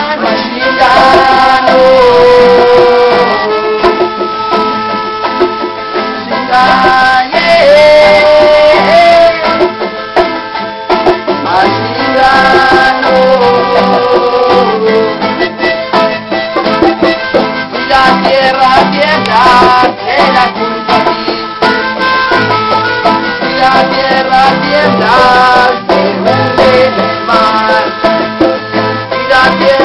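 Instrumental break of a small acoustic band playing Latin folk-rock. A melodica carries the held melody notes over a strummed charango and acoustic guitar.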